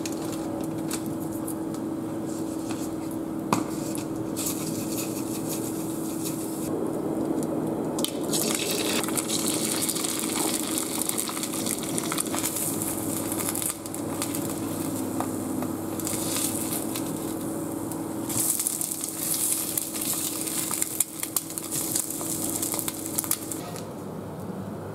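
Oil sizzling in a nonstick frying pan. The hiss swells sharply as eggs are cracked in and begin to fry, with scattered crackles and clicks over a steady low hum.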